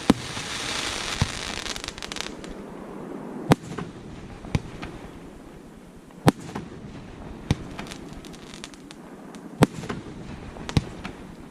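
Fireworks display: a dense hiss of small crackles fades out over the first two seconds. Then single sharp shell bursts go off every second or two.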